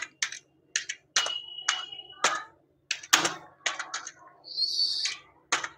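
Keys on a computer keyboard being typed: a string of separate, irregular clicks as the words 'electronic machine' are keyed in.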